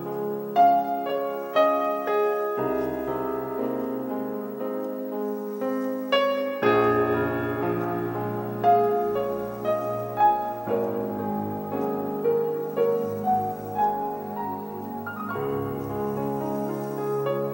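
Instrumental piano passage of a slow, gentle ballad, with struck notes over sustained bass chords and no singing.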